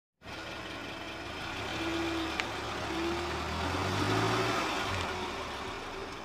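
Car engine running at low speed as the tyre rolls onto an inflatable vinyl bouncy-horse toy and squashes it flat. There are a couple of brief squeaky tones around two and three seconds in and a single sharp click between them. The sound builds to its loudest about four seconds in.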